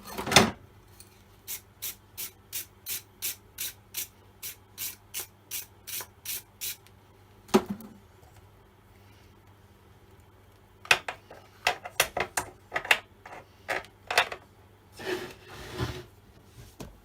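Rhythmic hand scraping or rasping, about three short strokes a second for about five seconds, then after a pause a run of irregular small clicks and knocks.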